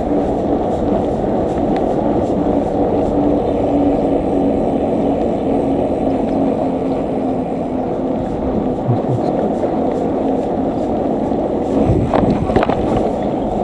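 Steady rushing road and wind noise from a moving bicycle ride: tyres rolling on the road and air buffeting the microphone, with a few short knocks near the end.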